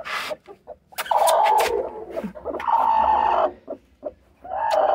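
Broody hen squawking harshly in two long calls, about a second in and again around three seconds, with a short sharp sound near the end. This is the protest of a hen sitting on eggs when a hand is pushed under her.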